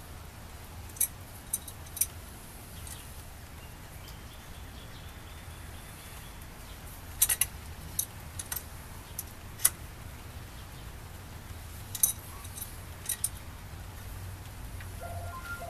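Sharp metal clicks and clinks of hand tools and hardware as a broadfork's wooden handles are bolted to its steel frame, scattered irregularly, some in quick pairs, over a steady low background rumble.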